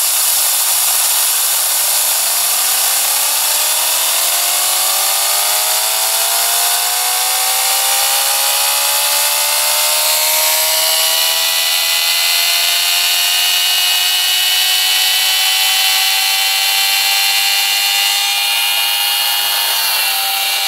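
Tesla turbine running on compressed air and spinning up: a steady rush of air hiss with a whine that rises in pitch over about ten seconds, then holds steady.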